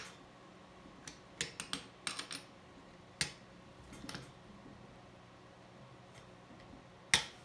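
Metal parts of an SKS rifle clicking and clacking as they are handled and fitted back together during reassembly: a scattering of short, sharp clicks, with the loudest one near the end.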